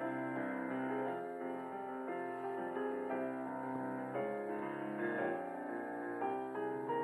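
Soft background piano music with slow, held chords.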